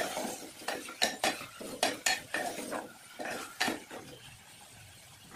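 Metal ladle stirring chopped vegetables in a metal pot, with irregular scrapes and clinks of metal on metal that die down about four seconds in.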